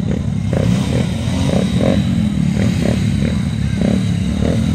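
Several small motorcycle engines idling together at a start line, a steady low running sound with short pulses repeating a few times a second.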